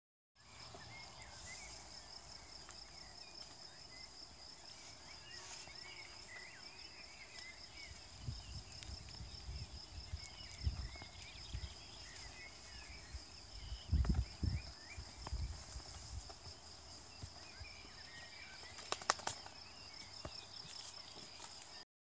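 Outdoor ambience of a steady, high-pitched pulsing insect trill with scattered small bird chirps. A few low thumps break in around the middle, the loudest about two-thirds of the way through.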